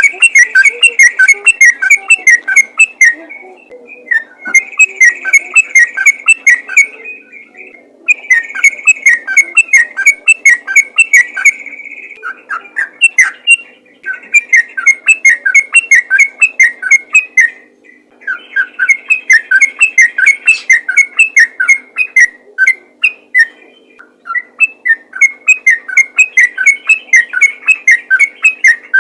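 Yellow-vented bulbul (trucukan) singing loudly in long, rapid runs of chattering whistled notes. Each phrase lasts three to four seconds, and a second or so of pause separates them.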